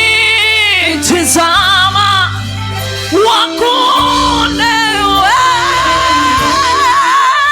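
Gospel worship music: a singer holding long, wavering notes without clear words over a steady sustained accompaniment, with one long held note in the second half.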